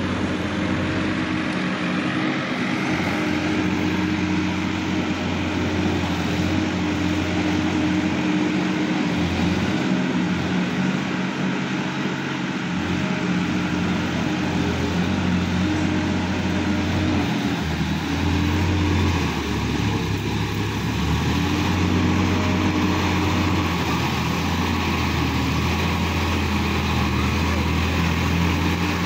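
Sonalika DI-50 RX tractor's diesel engine running steadily under load while it pulls a rotary tiller through grassy ground.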